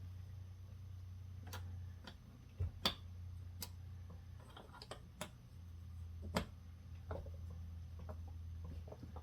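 Small metal starter parts, the just-removed cotter pins and pin, clicking and tapping irregularly as they are handled, with two louder clicks about three and six and a half seconds in. A steady low hum runs underneath.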